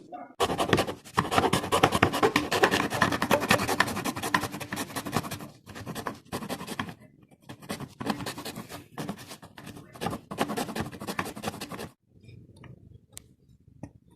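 Close, uneven scratching and rubbing noise full of rapid crackles, which stops abruptly about twelve seconds in, leaving only faint scattered sounds.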